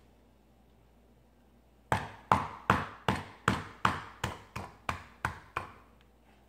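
A metal meat mallet whacking quartered shallots on a plastic cutting board: about eleven quick strikes, roughly three a second, starting about two seconds in and getting weaker toward the end.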